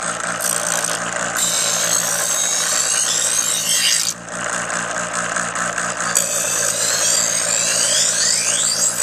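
Electric knife sharpener's motor running steadily while a kitchen knife blade is drawn through its grinding slot twice, each pass a high grinding rasp lasting about three seconds.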